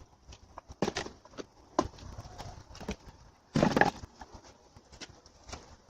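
Parts of a fish finder kit being handled: scattered light knocks and clicks of hard plastic, with a louder rustle or clatter about three and a half seconds in.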